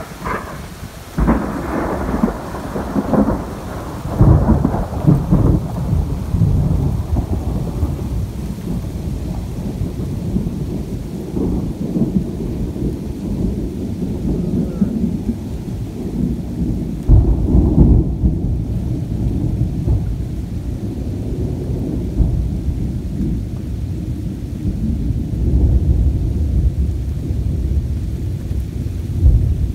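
A long roll of thunder from fork lightning: a continuous low rumble with louder peals about a second in, around four seconds in and again at about seventeen seconds.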